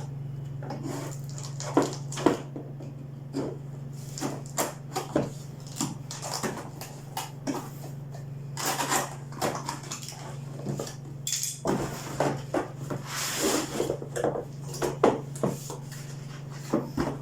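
Scattered taps, knocks and crinkling rustles of a laptop box and its packaging being handled and opened, with longer rustles near the middle, over a steady low hum.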